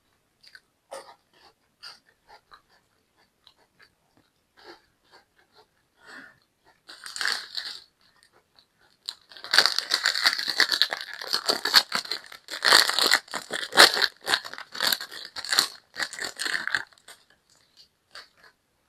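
Close-miked eating of a crisp pastry: a few soft mouth clicks and chewing sounds, then, from about halfway in, loud sustained crunching for several seconds that dies away near the end.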